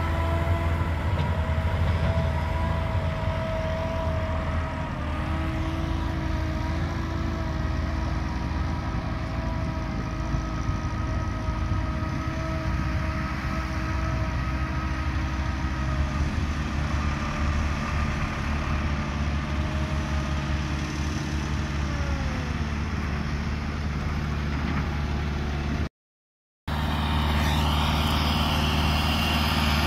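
Diesel engines of farm tractors and an excavator running steadily, one engine's pitch falling away about 22 seconds in. After a sudden short gap of silence near the end, a Massey Ferguson 385 tractor's engine running under load as it pulls an overloaded trolley.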